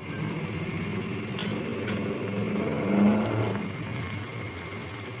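Low, uneven engine rumble, like a motor vehicle running, swelling about three seconds in, with a faint click or two.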